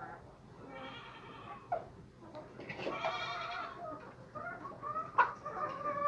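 Hens clucking as they feed, with two longer drawn-out animal calls about one and three seconds in. A single sharp knock about five seconds in is the loudest sound.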